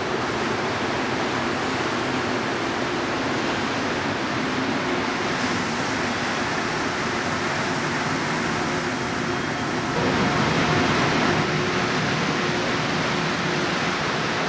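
Rubber-tyred Montreal Metro train running along the platform: a steady rushing roar with a faint steady hum in it, growing louder about ten seconds in.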